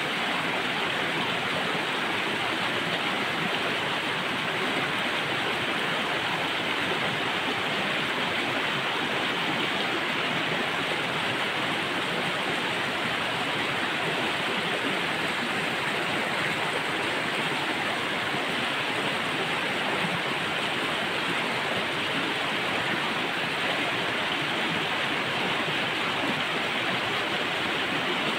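Flowing water of a stream rushing steadily over rocks, a continuous even rush with no breaks.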